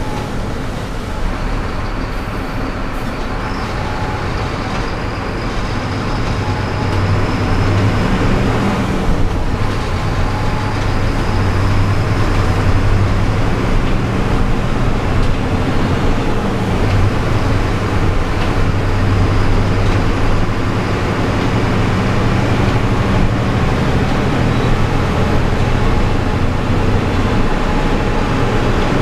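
City bus driving on a wet road, heard from inside the driver's cab: the diesel engine's steady drone under a constant hiss of tyres and rain, growing a little louder about seven seconds in.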